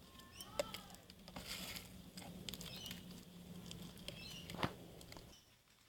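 Faint crackling and soft clicks of sequin-filled crunchy slime being handled and packed into a plastic container, with one sharper click near the end. The sound cuts off abruptly shortly before the end.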